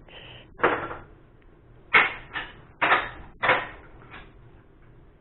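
A series of sharp knocks on wood, about six in four seconds at uneven spacing, the loudest about two seconds in.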